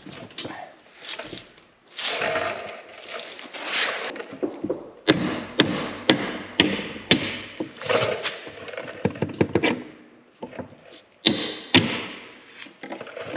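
Hammer blows on a steel punch held against a snowmobile ski's rusted, seized spindle bolt, trying to drive it out. Five sharp metal strikes about half a second apart come about five seconds in, then two more near the end.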